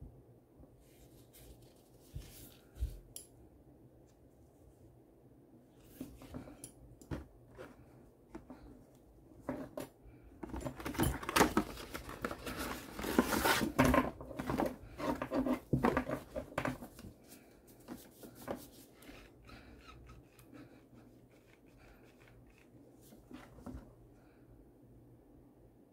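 Hands unpacking a boxed strap set. The cardboard box and its inner packaging crinkle and rustle loudly for several seconds in the middle. Before and after that come scattered light clicks and clinks from the metal snap hooks and nylon straps being handled.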